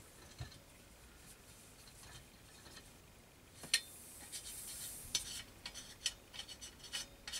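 Pressure being let out of an Optimus 8R stove's fuel tank: a sharp click a little past halfway, then a short high hiss of escaping pressure for about a second, followed by light metallic clicks and rubbing as the stove is handled.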